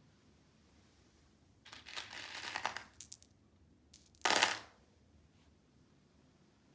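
Crinkling of plastic packaging in two bouts: a crackly rustle lasting about a second and a half, then a shorter, louder crinkle about four seconds in.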